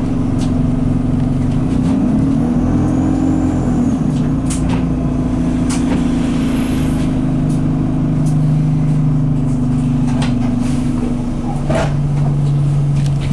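Alexander Dennis Enviro200 bus heard from inside, its diesel engine running steadily under way, held in a low gear by a gearbox stuck in 2nd/3rd. The engine note rises and wavers a couple of seconds in, then settles, with a faint high turbo whistle and scattered interior rattles and clicks.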